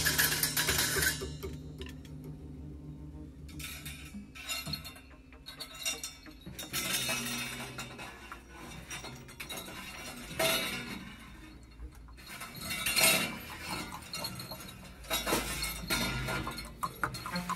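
Music dies away within the first second, then scattered light clinks and knocks, a few louder clusters about ten, thirteen and fifteen seconds in.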